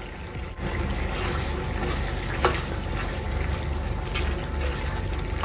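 Thick pineapple and coconut curry bubbling at a simmer in a pan while a spoon stirs through it, with a couple of short knocks of the spoon against the pan.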